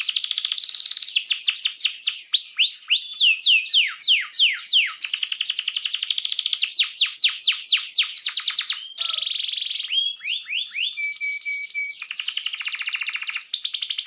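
Domestic canary singing a long, fast song: rapid runs of repeated sweeping notes, a buzzy roll about nine seconds in, a short steady whistle, then a fast trill.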